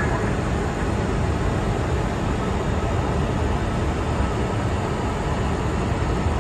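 Steady, deep rushing cruise noise on the flight deck of an Airbus A350 at altitude: airflow over the airliner and its engines heard from inside the cockpit, unchanging throughout.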